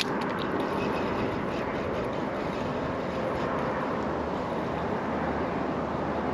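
Steady outdoor rushing noise, like wind or distant traffic, with a single sharp click right at the start.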